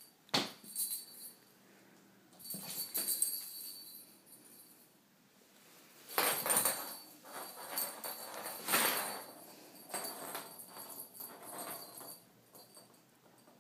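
Fabric pop-up cat tunnel rustling and crinkling in several separate bursts as a kitten scrambles in and around it and it is pushed about, with a light jingling alongside.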